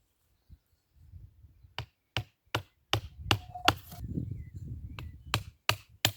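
Sharp hammer blows on wood, about ten of them in two quick runs with a short pause between: a wedge being driven into the tip of a hoe's wooden handle to tighten the loose blade in its socket.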